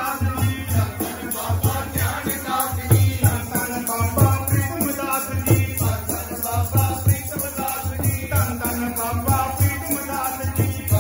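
Devotional group singing (kirtan) led on a microphone, over a steady drum beat and a jingling rattle that keeps time at about four to five strokes a second.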